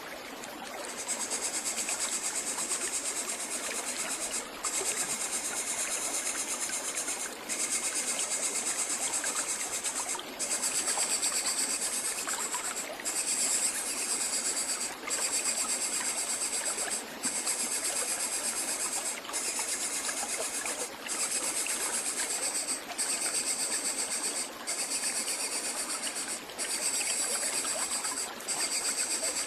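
An insect trilling at a high pitch in repeated bouts of about two to three seconds with brief breaks, over a steady background hiss.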